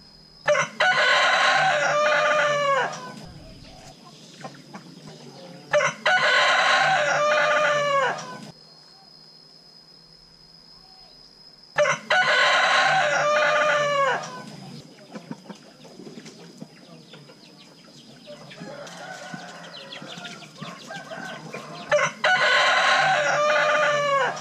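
A rooster crowing four times, each crow about two and a half seconds long and ending in a drawn-out falling note, with a fainter call in between.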